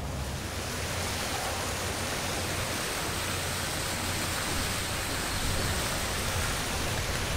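Steady rushing noise of wind on the microphone and rumble from a moving golf cart travelling along a paved cart path.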